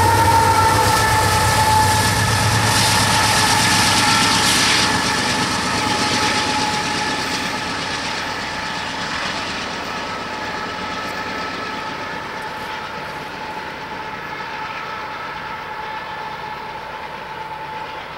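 A passing Union Pacific diesel freight train rumbling and clattering on the rails, fading over the first few seconds. A locomotive's multi-chime air horn is held throughout, its chord sagging slightly in pitch and growing fainter.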